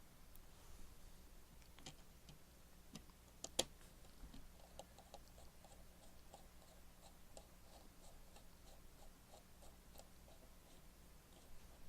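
Faint clicks of small screws and a screwdriver while fitting a graphics card's back plate: a few sharp clicks, then a run of light, even ticks about three a second.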